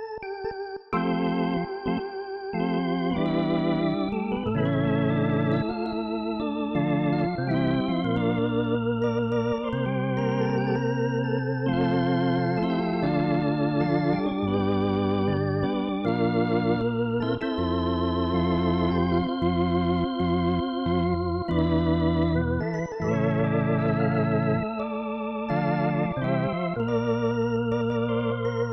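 Native Instruments B4 II, a software emulation of a Hammond tonewheel organ, played live on a keyboard: two-handed held chords that change every second or two over a moving bass line, the sustained notes wavering.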